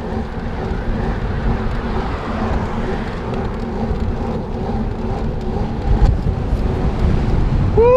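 Wind and road rumble from riding a bicycle, loud and steady, with a faint steady hum underneath.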